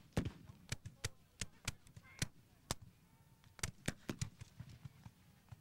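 Scattered black-powder musket fire: a ragged run of sharp cracks, several a second and of uneven loudness, with no volley.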